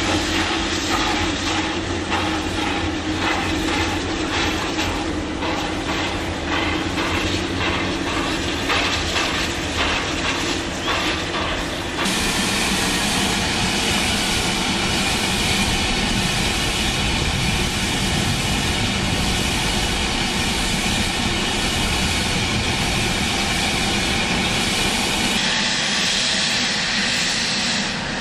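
Steam locomotive working, its exhaust beating in a rapid rhythm as it hauls loaded sugar cane wagons; after an abrupt change partway through, a steadier, denser rush of steam from a locomotive takes over, with a sharper hiss of steam venting near the end.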